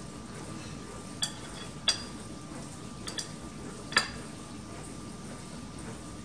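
A metal table knife clinking several times against a ceramic butter dish while scooping butter, the sharpest clink about four seconds in, over a faint steady room hum.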